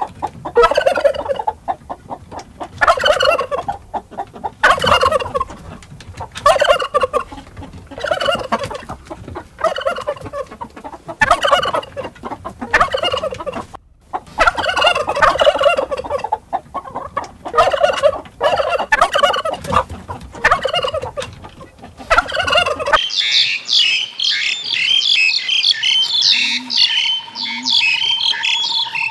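Tom turkey gobbling over and over, a rapid warbling call about every second and a half. About 23 seconds in it cuts suddenly to high twittering birdsong with a steady whistling tone.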